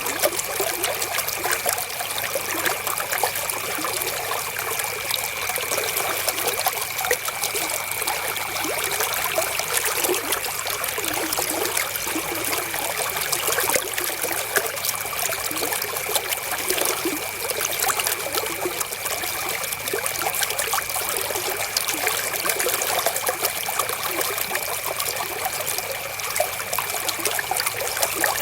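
River water flowing and trickling over stones in a steady, even rush with no breaks. A faint steady high tone runs underneath.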